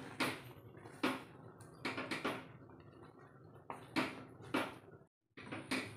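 Spatula stirring and scraping a thick jaggery and wheat-flour mixture around a kadhai, a short scrape every second or so.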